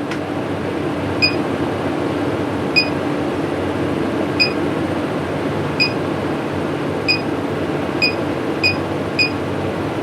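MaxxFan Deluxe 7500K roof vent fan running steadily with a low hum. Its control beeps eight times as its speed is stepped up, the beeps coming closer together toward the end.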